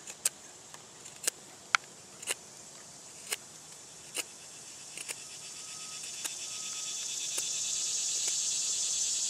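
Sharp, irregular clicks and snaps of a multi-tool knife blade cutting into a stick, thinning out after about five seconds. Under them, a chorus of insects trilling in fast pulses grows steadily louder through the second half.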